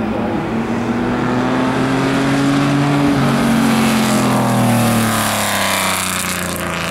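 Maserati 250F Grand Prix car's straight-six engine under hard acceleration. It rises in pitch for about three seconds, then the pitch and level fall away as the car passes and pulls off up the course.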